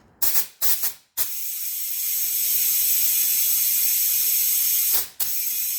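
Compressed air rushing into a motorcycle tyre through an inflator to seat the bead: three short blasts, then a long steady hiss that breaks off about five seconds in and starts again. The bead does not seat, so air keeps escaping past it.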